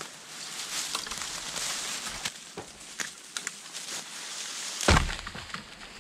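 A dead tree trunk being dragged and scraped through dry leaf litter and twigs, with footsteps crunching and small snaps. About five seconds in there is a loud heavy thud as the trunk drops to the ground.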